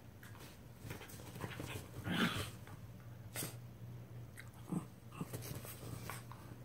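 Shiba Inus play-wrestling: short, scattered dog vocal sounds and scuffling on bedding, the loudest about two seconds in.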